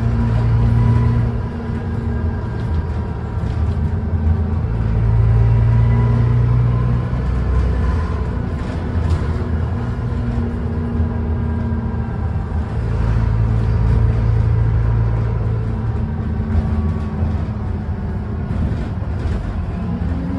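Dennis Trident double-decker bus heard from inside the passenger deck, its diesel engine pulling away and changing gear. The engine note swells and steps in pitch several times as the bus speeds up and slows.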